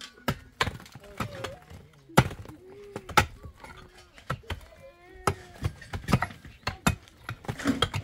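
Irregular sharp knocks of hand-tool blows, about two a second, with short voices in between.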